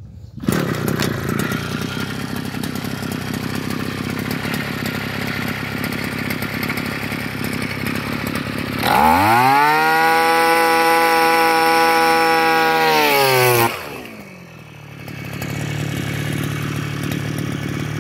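Small petrol engine of a Kaaz earth auger (tree-planting hole digger) running at a steady idle, then revved hard about nine seconds in and held at high speed for about five seconds before dropping back to idle.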